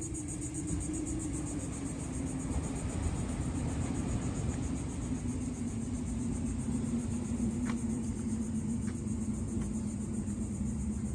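A distant engine's low hum, slowly dropping in pitch, over a steady low rumble. A few faint short ticks come in the second half.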